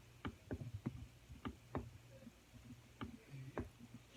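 Faint, irregular clicks and taps, about seven of them in four seconds, over a low steady hum.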